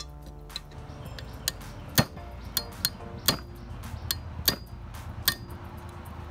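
Sharp metallic clinks and taps as a steel tool works among the internal parts of an opened Honda GX160 crankcase during disassembly: about a dozen irregularly spaced clinks, the loudest about two seconds in.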